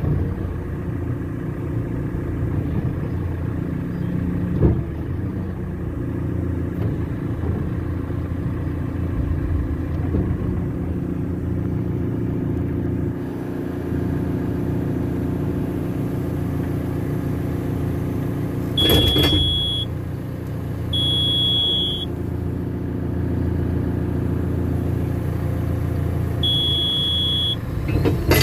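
A forklift's diesel engine runs steadily, heard from inside the cab. Short, high electronic beeps from the machine's warning buzzer sound three times in the second half.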